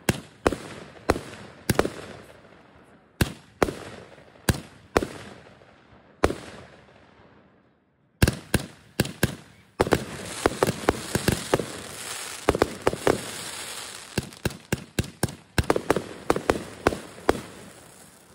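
Consumer aerial fireworks going off, a string of sharp bangs as shots launch and burst. The bangs die away to near quiet around seven seconds in. From about eight seconds in comes a faster, denser volley of bangs.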